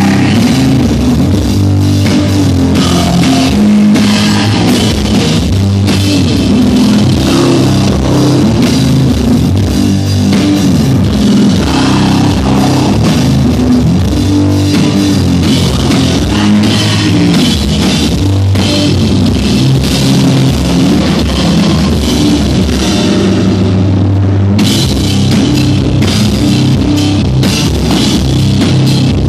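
Sludge metal band playing live: heavily distorted electric guitar over drum kit and cymbals, loud and dense throughout. About five seconds before the end the cymbal wash briefly drops away, then comes back in sharply.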